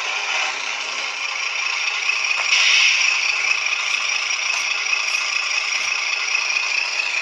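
WPL C44KM RC truck running, a steady mechanical rattle and whir that swells slightly about two and a half seconds in.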